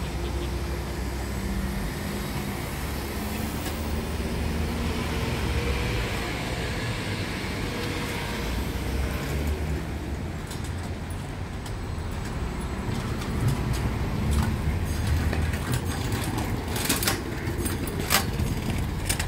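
Street traffic: a city bus drives past and away with a steady running hum, then cars pass on the road. Several sharp clicks come near the end.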